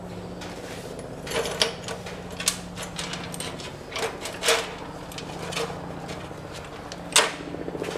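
Scattered sharp clicks and light clatter from handling small metal hardware and tools, about seven in all with the loudest near the end, over a steady low hum.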